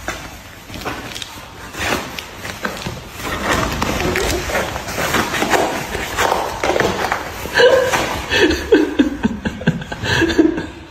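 Cardboard box crackling and scraping as a cat pushes and wriggles inside it. Short sliding voice sounds come over the last three seconds.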